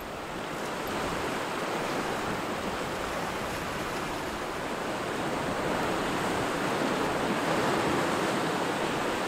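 Small Lake Superior waves washing steadily against a rocky shoreline: a continuous wash of water noise with no separate crashes.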